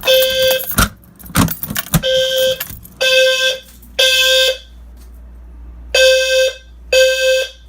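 Fire alarm low-frequency sounders blaring a low, buzzy tone in the temporal-three evacuation pattern: three short blasts, a longer pause, then three more. A few sharp knocks fall in the first pause.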